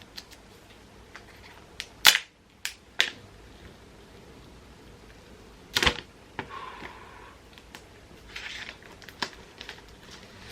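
Paper seal strip being peeled off an iPhone box: scattered crinkles and sharp clicking snaps, the loudest about two seconds in and again near six seconds.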